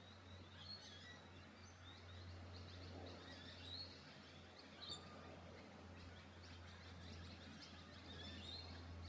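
Faint birds chirping in short, scattered calls over a steady low hum.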